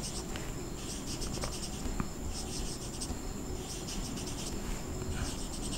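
Marker pen drawing on a whiteboard: short scratchy strokes in several runs of a second or less as lines and small dots are drawn.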